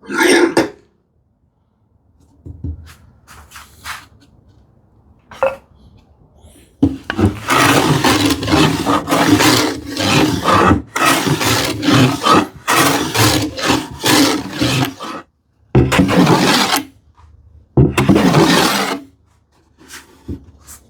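Rapid back-and-forth scraping strokes of a hand tool working a sawn plywood edge down to the knife line, in a dense run of many strokes, then two longer single strokes near the end. A few faint knocks come before.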